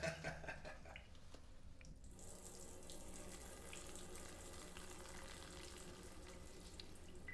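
A stream of urine splashing steadily into a stainless-steel trough urinal, beginning about two seconds in.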